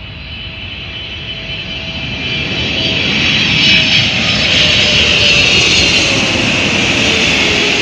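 Boeing 777-300ER's two GE90 turbofan engines on final approach, passing low overhead with the jet noise and a high whine growing louder through the first half, then holding loud. A faint lower tone slowly falls in pitch as the airliner goes by.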